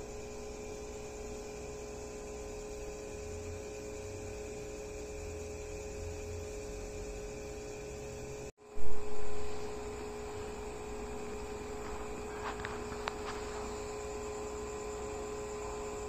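Steady electrical hum with several fixed tones. It breaks off briefly about halfway through, and a short low thump follows. A few faint clicks come later.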